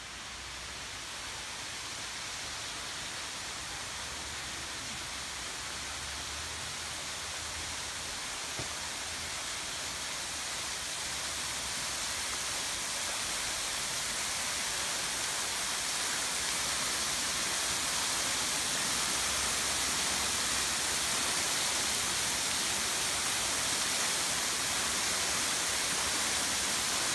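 Reidbach waterfall, a thin cascade over mossy rock ledges, splashing into a shallow pool: a steady rush of falling water that grows gradually louder.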